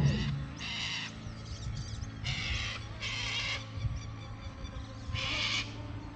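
Birds giving harsh, caw-like calls, about five calls of half a second each spaced irregularly, over a low steady hum.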